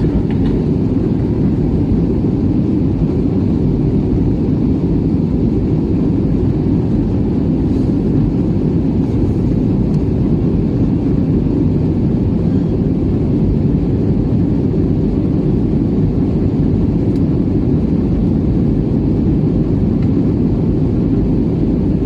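Aircraft in flight heard from inside the cabin: a steady, unchanging low roar of engines and rushing air.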